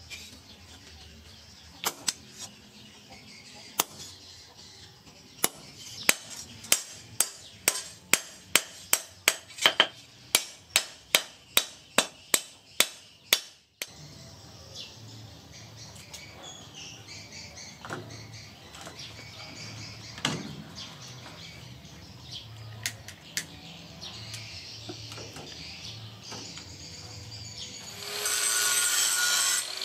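Hammer blows on a punch held against a red-hot steel sword blank on a steel anvil: a few scattered strikes, then a steady run of about three a second that stops suddenly about halfway. After a quieter stretch with a few faint knocks, an angle grinder starts near the end, grinding steel loudly.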